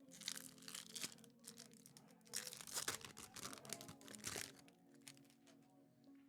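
Trading card pack wrapper crinkling and tearing in irregular bursts as it is handled and opened, over quiet background music; the crinkling stops about four and a half seconds in.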